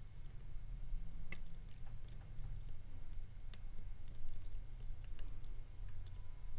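Scattered faint metallic clicks and scratches of a lock pick working the pins of a cheap tubular lock, over a low steady hum.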